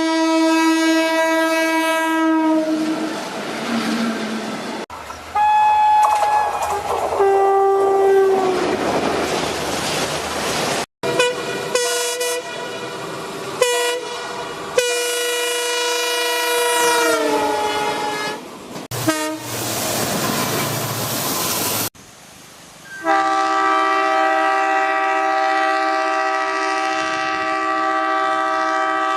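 Indian Railways locomotive horns in a series of separate blasts: some are held steady, some are short toots, and a couple drop in pitch as the train goes by. Between the horns, passing trains rumble and clatter over the rails. A long steady horn chord sounds near the end.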